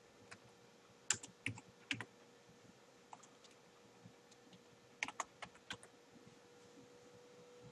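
Computer keyboard keys tapped in two short bursts of typing, a few keystrokes each: about a second in and again about five seconds in. A faint steady hum runs underneath.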